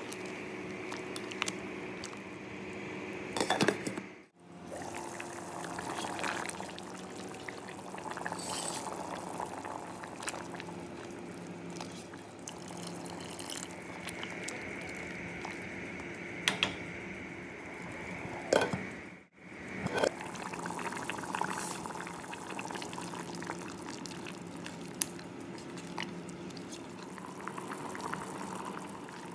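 Soup bubbling at the boil in a steel pot, with a spoon stirring and clicking against the pot, and liquid poured in near the end; a steady hum runs underneath. The sound drops out briefly twice, about four seconds and about nineteen seconds in.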